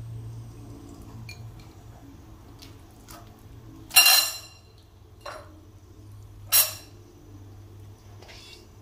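Metal kitchenware being handled: two sharp ringing clinks about two and a half seconds apart, with a softer tap between them and a few light ticks before, over a faint low steady hum.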